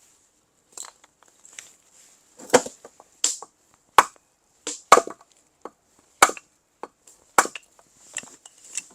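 Firewood being split by hand: a run of sharp, separate chopping strikes of a blade into wood, about one a second, some striking harder than others.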